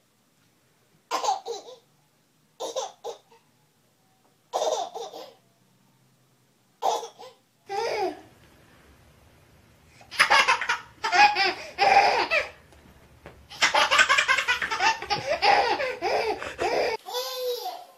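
A baby laughing: short separate bursts of laughter at first, then louder, almost unbroken laughter from about ten seconds in.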